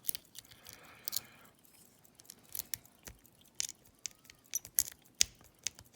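A snake rake scraping in and out of an old Corbin cabinet wafer lock under tension, giving irregular light metallic clicks and ticks as it rakes across the wafers.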